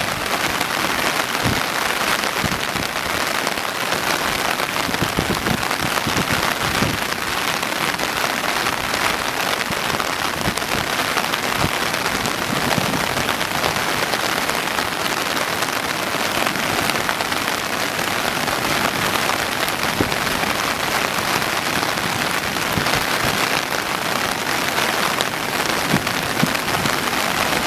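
Steady, dense noise of heavy typhoon rain, with scattered short low thumps.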